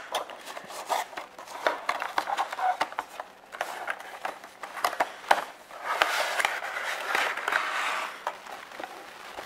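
Cardboard box being handled and opened by hand: fingers clicking and scraping against the box, with a longer stretch of cardboard rubbing and sliding about six seconds in as the lid comes open.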